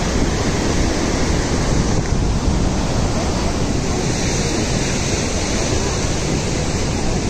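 Steady, loud rush of a river in high flood after heavy rain: fast, muddy water churning over its bed.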